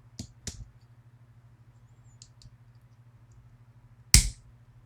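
Small metal clicks and scrapes of a tool working at the retaining clip of a Yale 500 plus lock, with one sharp, loud click about four seconds in as the tool slips or snaps against the stubborn clip.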